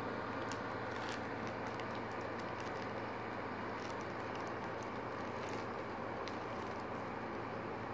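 Thin plastic carrier bag crinkling in scattered short crackles as a cat pushes into it, over a steady background hiss and low hum.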